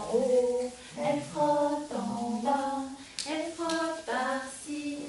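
A woman singing a nursery rhyme unaccompanied, in short held notes that step up and down, with two sharp hand claps a little past three seconds in.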